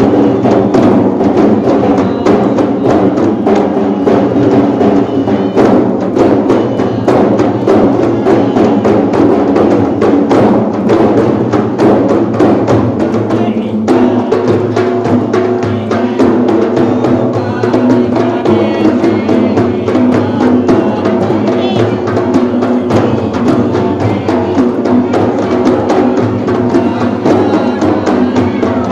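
A group of large hand-struck rebana frame drums played together in a fast, dense, driving rhythm.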